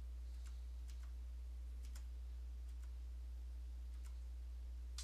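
Scattered computer keyboard key presses, about six short clicks over five seconds, over a steady low hum.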